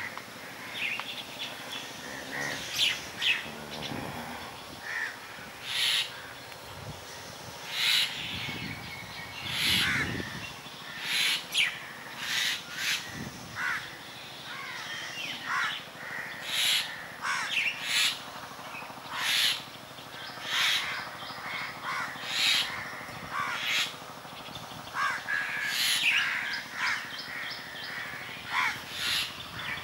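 Crows cawing over and over, a call every second or so, with smaller birds chirping among them.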